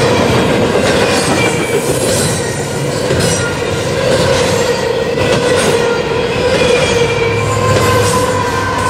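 Double-stack container train rolling past: the well cars' steel wheels give a steady roar with a few high, wavering squeals and a clack about once a second at the rail joints. Near the end, the low engine drone of the mid-train GE ET44AH distributed-power diesel locomotive joins in as it passes.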